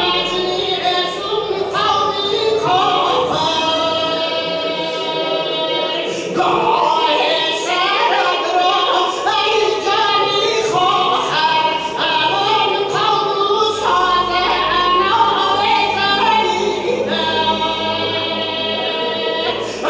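A man's voice chanting a Muharram rowzeh (mourning elegy) through a microphone: long, held, ornamented notes that slide from pitch to pitch in a slow lament.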